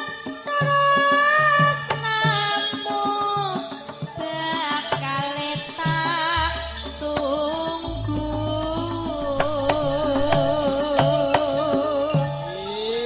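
Live Javanese gamelan-style (campursari) music in pelog tuning: a wavering sung melody over short hand-drum strokes, with a deep sustained bass note coming in about halfway through.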